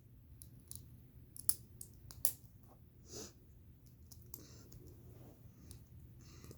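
Plastic Lego flat plates clicking as they are handled and snapped onto the bricks: a few sharp clicks at uneven intervals, the loudest about one and a half and two and a quarter seconds in.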